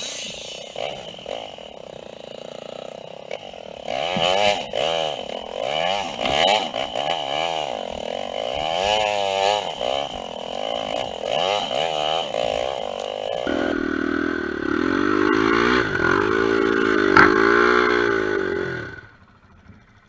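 Honda XR250R single-cylinder four-stroke dirt bike engine revving up and down repeatedly as it is ridden over rough ground. The engine note drops lower about two-thirds of the way through, and the sound cuts off abruptly near the end.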